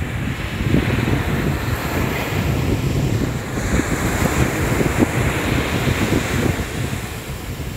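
Ocean surf breaking and washing up a sandy beach, with wind rumbling on the microphone. A wave crests and breaks about halfway through, and its wash swells in the second half.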